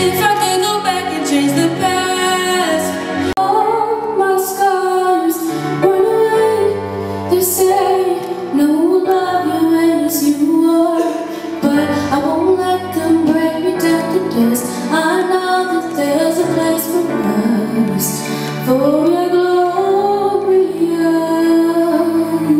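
A young woman singing solo into a microphone in phrases over instrumental accompaniment with held lower notes.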